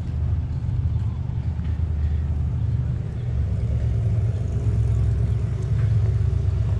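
A motor vehicle engine running steadily with a low rumble.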